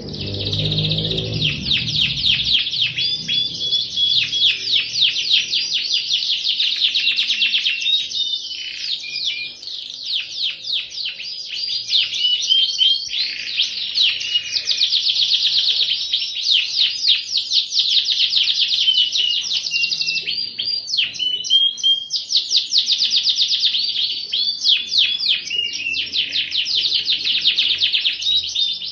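Domestic canary singing continuously: long runs of fast rolling trills and quick chirps, broken by a few brief pauses.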